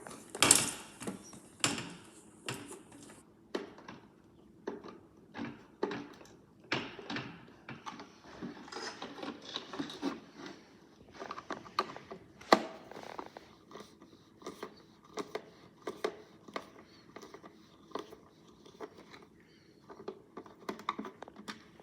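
Irregular clicks, taps and knocks of a plastic toy washing machine being handled and worked on, the loudest near the start and about halfway through.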